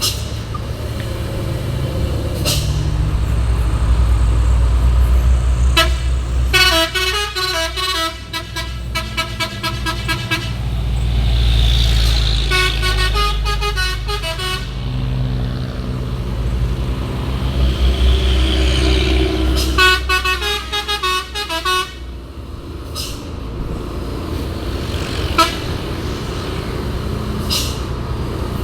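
Hino 500 truck's diesel engine rumbling heavily under its exhaust brake ('jembrit') on a downhill. Multi-tone 'telolet' horns play tunes three times over it: the first and longest about a quarter of the way in, a short one soon after, and another a little past the middle. A few sharp clicks come later on.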